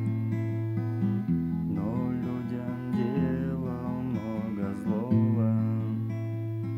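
Acoustic guitar playing an instrumental passage: held bass notes under a plucked melody, some of the melody notes wavering in pitch.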